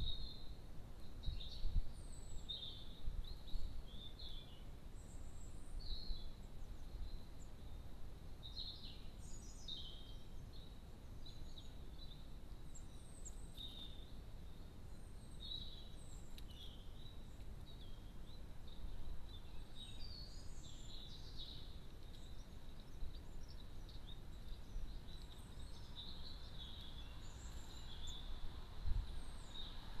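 Garden songbirds calling and singing in short chirps and brief phrases, scattered throughout, over a low background rumble.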